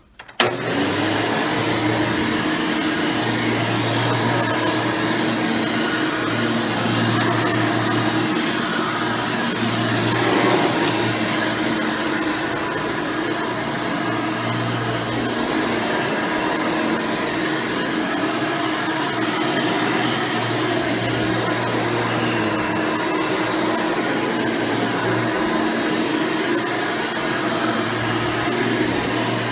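Hoover Elite Supreme U5071-930 upright vacuum, with a 7-amp motor and 20-blade fan, switched on about half a second in and then running steadily while vacuuming.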